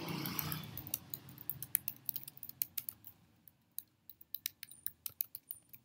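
Computer keyboard typing: rapid, irregular key clicks as a short phrase is typed, thinning out into scattered clicks in the second half.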